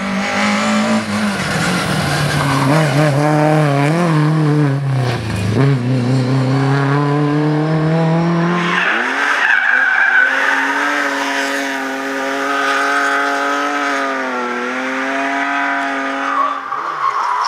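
Rally car engines at high revs, the note dipping and climbing with gear changes and throttle lifts. About nine seconds in a different car takes over, running at a higher, steadier pitch with a dip near the end.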